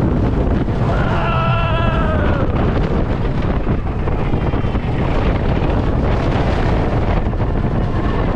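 Heavy wind buffeting the microphone on a moving roller coaster, over the train's steady rumble on the track. About a second in comes a brief high-pitched wavering tone.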